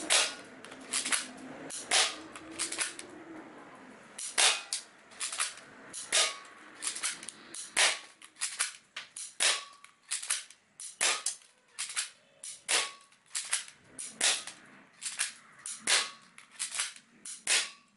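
Airsoft gun fired again and again in a fast series of sharp shots, about one to two a second, with a short pause about two seconds in.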